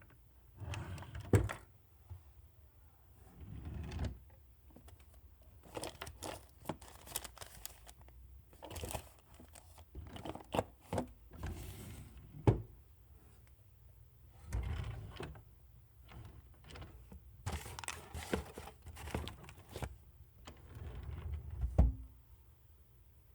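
Drawers being pulled open and pushed shut again and again, a dozen or so times. Each is a short sliding scrape, often ending in a sharp knock or rattle as the drawer hits its stop. The loudest knocks come near the start, about halfway and near the end.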